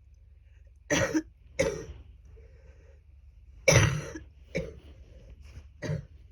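A person with a bad cold coughing, a wet, phlegmy cough: about five separate coughs, the loudest a little past halfway.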